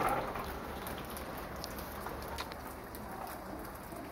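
Light rain falling steadily, with scattered individual drops ticking on surfaces.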